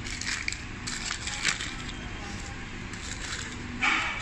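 Paper sandwich wrapper crinkling and rustling as hands unwrap it, in short bursts, the loudest near the end.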